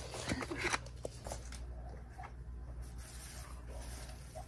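Faint handling noises on a plastic dog puzzle feeder board: a few light clicks and rubbing, mostly in the first second, over a low steady room hum.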